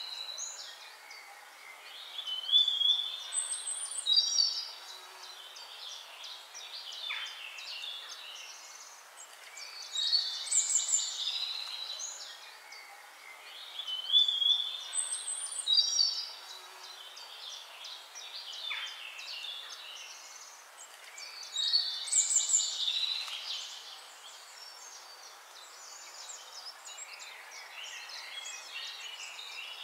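Birdsong: bursts of chirping and warbling calls that recur in the same pattern about every twelve seconds, like a looped nature recording.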